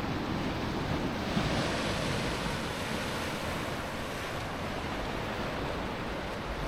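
Atlantic surf washing steadily against the pier and shore, swelling a little about a second and a half in, with wind rumbling on the microphone.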